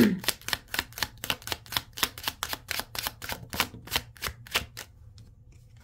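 A deck of tarot cards being shuffled by hand, the cards snapping against each other in a quick run of about six or seven clicks a second that stops about five seconds in.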